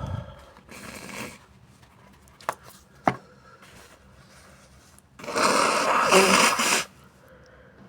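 A congested nose, blocked by a bad sinusitis attack: light sniffing and breath near the start, two small sharp clicks a couple of seconds later, then a loud breathy blast through the nose lasting about a second and a half.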